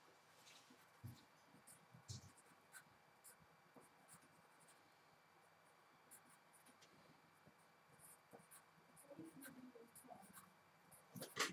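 Faint scratching of a pencil on paper in short strokes, as small triangles are drawn along a beetle's feelers, with one sharper tap near the end.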